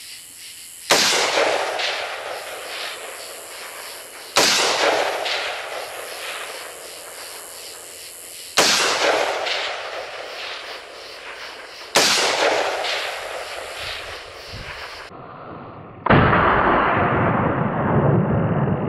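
Four single shots from an AR-15 carbine firing 5.56 mm tracer rounds, three to four seconds apart; each sharp report is followed by a long echo that fades over about three seconds. Near the end a steady, loud rushing noise takes over.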